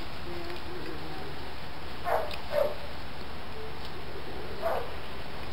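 A dog barking three times: two short barks close together about two seconds in and one more near the end.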